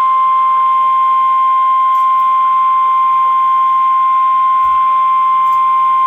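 NOAA Weather Radio 1050 Hz warning alarm tone: one steady, loud, high tone that cuts off at the very end, signalling that a warning, here a tornado warning, is about to be broadcast.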